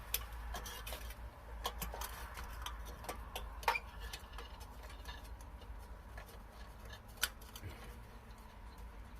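Irregular small clicks and ticks with a few sharper knocks: hands and tools working on an exterior light fixture as it is taken down from the wall.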